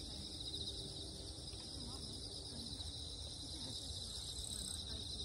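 Crickets chirring in a steady, fast-pulsing high trill, over a low background rumble.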